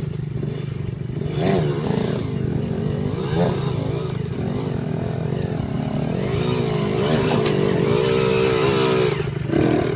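Dirt bike engines idling, with throttle blips about a second and a half and three and a half seconds in, and longer revs rising and falling in the second half.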